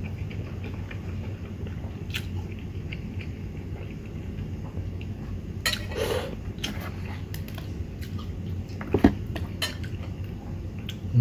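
A person eating noodles: chewing, with a metal fork clinking and scraping against a ceramic bowl, the loudest clink about nine seconds in. A steady low hum runs underneath.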